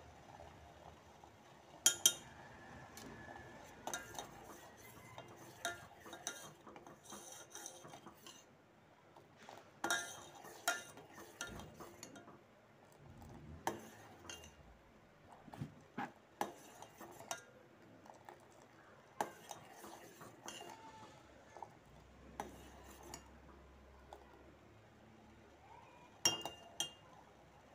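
Steel ladle and spoon stirring milk in a stainless-steel saucepan, clinking and scraping against the pan at irregular intervals; the sharpest clinks come about two seconds in and again near the end.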